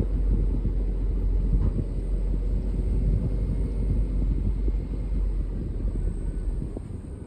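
Car road noise heard from inside the cabin: a steady low rumble of tyres and engine, getting quieter near the end.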